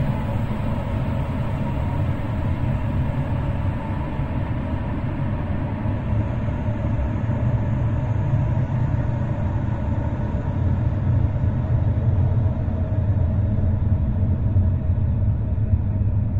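A steady, loud low rumble, with a few faint held tones above it.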